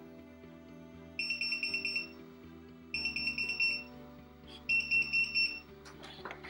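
Message display pager sounding its alert after the call pendant is pressed: three bursts of rapid high beeps, each just under a second long, over background music. A few sharp clicks near the end.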